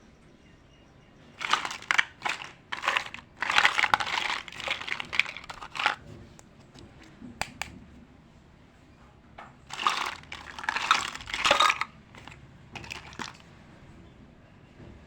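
Plastic packaging crinkling and crackling as it is handled, in two spells: the first starting about a second and a half in, the second about ten seconds in. A few light clicks follow the second spell.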